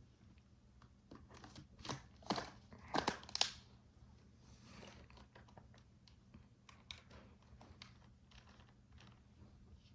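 Handling noise from plastic stick-vacuum parts: a cluster of sharp clicks and knocks about two to three and a half seconds in, a brief soft rustle near the middle and a single click later on.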